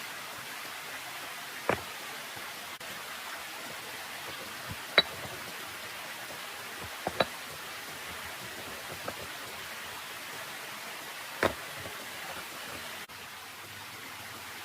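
A steady hiss of outdoor noise with a handful of sharp, separate taps or knocks, about six or seven of them at irregular spacing.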